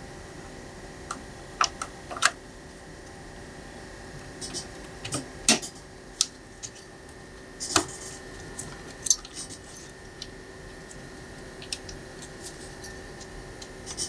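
Sharp plastic clicks and handling sounds of a DDR3 RAM stick being seated in a motherboard DIMM slot, with the slot's retaining latches snapping in. A scattering of irregular clicks, the loudest about two, five and a half, eight and nine seconds in, over a steady faint hum.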